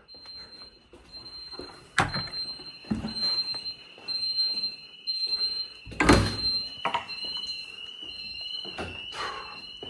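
Building alarm sounding: a high-pitched tone beeping on and off over a second, steadier high tone. Several sharp thuds cut through it, the loudest about six seconds in.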